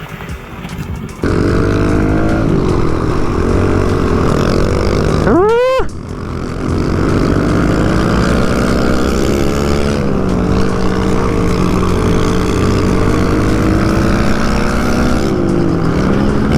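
Single-cylinder off-road engine running under throttle while riding, getting louder about a second in, its pitch wavering up and down. About five and a half seconds in it revs sharply up, drops off, then picks back up.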